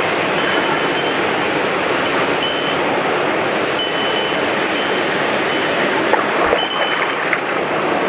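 Mountain stream running steadily over rocks close by, a constant rushing of water, with a few faint short high peeps over it.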